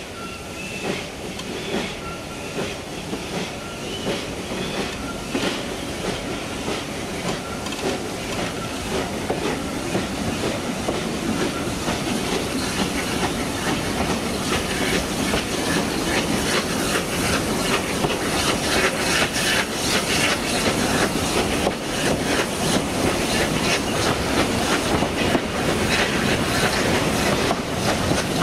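Narrow-gauge steam train running, heard from beside the carriage: wheels clicking over the rail joints over the noise of the locomotive working ahead, growing steadily louder.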